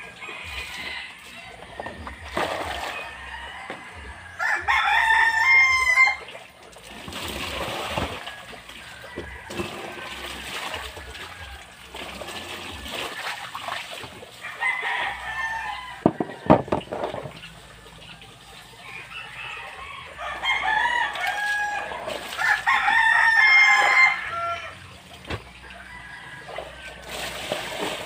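Roosters crowing several times, loudest about five seconds in and again around twenty seconds in. Between the crows, water splashes and pours as laundry is rinsed by hand in plastic basins.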